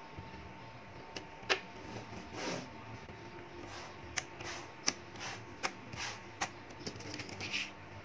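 Small magnetic balls clicking and snapping against each other as sheets of them are handled and pressed together, a string of irregular sharp clicks with softer rattling and rustling between them.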